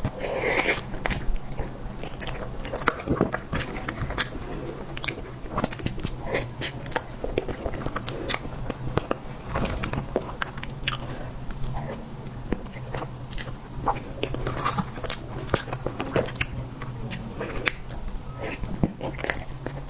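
Close-miked eating: wet chewing with many small irregular mouth clicks and smacks, over a steady low hum.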